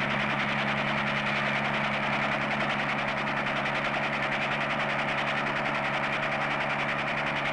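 Steady drone of an aircraft engine: a low hum under an even hiss that holds the same level throughout.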